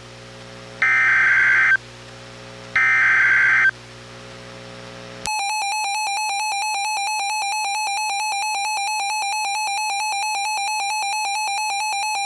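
Two bursts of EAS SAME header data on a weather radio, each a harsh digital warble lasting about a second, signalling an incoming tornado warning. About five seconds in, the Reecom R-1630 weather radio's own warning alarm cuts in over the broadcast: a steady, rapidly pulsing electronic tone.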